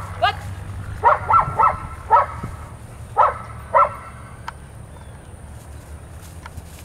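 German Shepherd barking excitedly, about seven short barks in quick groups of two or three, stopping about four seconds in.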